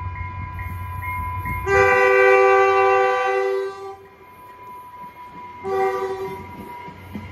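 Caltrain commuter train pulling out with its chord horn: one long blast of about two seconds starting a couple of seconds in, then a short blast near the end, over the low rumble of the moving train.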